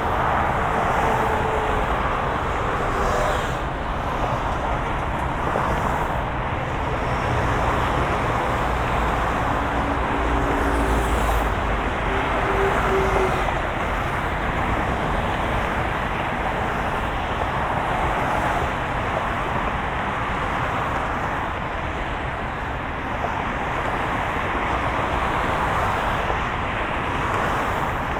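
Steady road traffic: a continuous wash of passing cars, with a deeper engine rumble swelling about ten seconds in.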